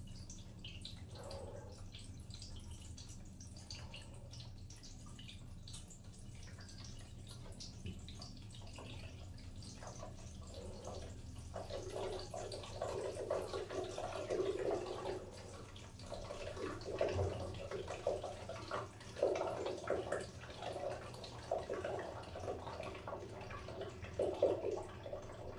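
Water dripping steadily in a bathroom drain pipe, turning into heavier, irregular splashing in clusters about halfway through.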